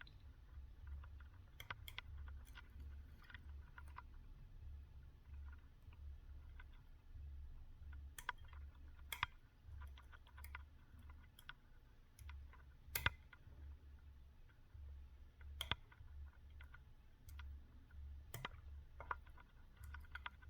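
Faint, scattered small metallic clicks and ticks of a hook pick working the spring-loaded pins of a BiLock NG lock cylinder under tension. These are the little clicks of pins moving and setting, with one sharper click about two-thirds of the way through.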